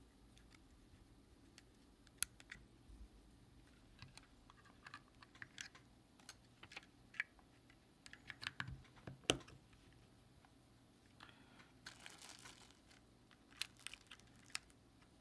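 Faint, irregular small clicks and taps of a plastic snore-stopper wristband being handled, the loudest just after nine seconds. A brief rustle of packaging comes about twelve seconds in.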